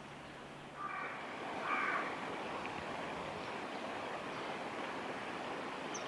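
Steady rushing noise of a small river's flowing water, stepping up just under a second in, with two brief higher-pitched sounds about one and two seconds in.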